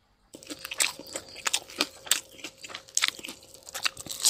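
Eating sound effect: a mouth chewing and crunching food in a quick, irregular run of crunches and wet smacks, with a faint steady hum underneath.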